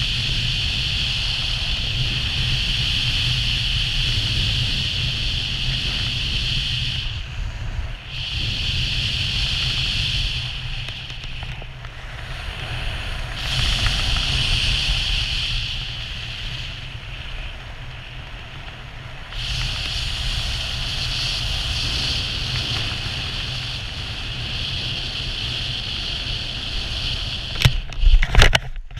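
Wind rushing over a skydiver's helmet-camera microphone during parachute canopy flight: a steady low rumble with a hiss that fades and returns several times. Just before the end, a few sharp thumps and scuffs as the skydiver touches down on the ground.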